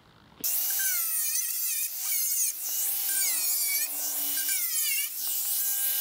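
Angle grinder cutting away the sheet-metal housing of an electric hot plate. It starts about half a second in, and its high whine sags and recovers again and again as the disc bites into the metal.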